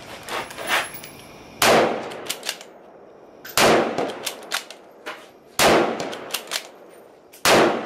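Ruger Gunsite Scout bolt-action rifle fired four times, about two seconds apart. Each loud shot has a short reverberant tail, and a few shorter sharp clicks follow it.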